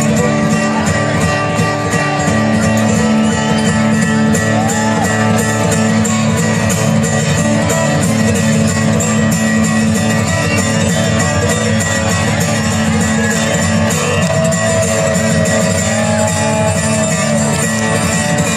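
Bluegrass band playing, with fast picked acoustic strings over a steady bass.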